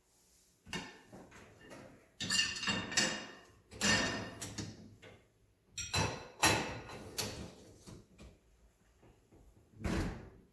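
Irregular clattering and rattling knocks of kitchen hardware being handled, about seven bursts, the loudest a few seconds in.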